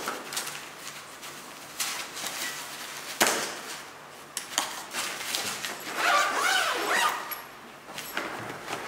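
Handling noise from a VinGardeValise wine suitcase's padded interior and straps as bottles are strapped in: fabric rustling, with scattered clicks and knocks, a sharp one about three seconds in. A brief wavering pitched sound comes in about two-thirds of the way through.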